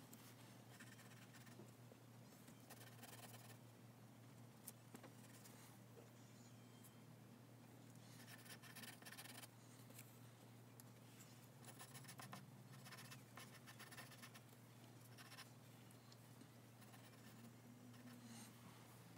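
Graphite pencil scratching faintly on drawing paper in short runs of sketching and shading strokes, over a steady low hum.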